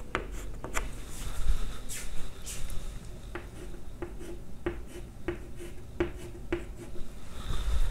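Chalk drawing on a blackboard: a string of short scratching strokes and taps as lines are drawn.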